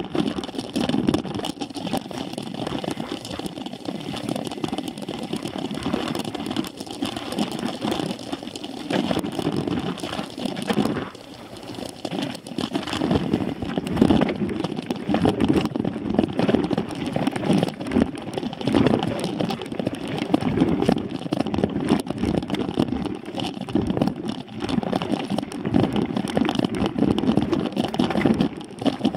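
Ride noise of a mountain bike on dirt singletrack, picked up by a camera mounted on the bike: a steady rumble, with wind and rattling over the rough trail, dipping briefly about eleven seconds in.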